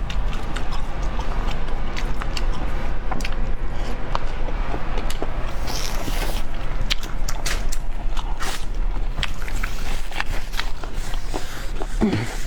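Eating boiled river snails: chewing with many scattered sharp clicks, over a steady low hum.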